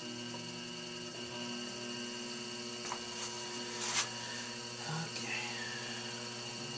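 Electric potter's wheel running with a steady hum while a leather-hard clay cup spins on the wheel head for trimming. A brief sharp click about four seconds in.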